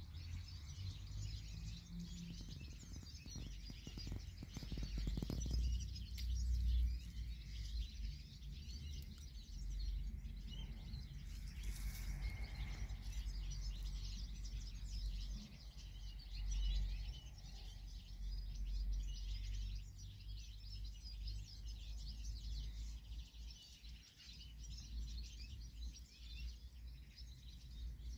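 Many small birds chirping continuously in the background, over a steady low rumble.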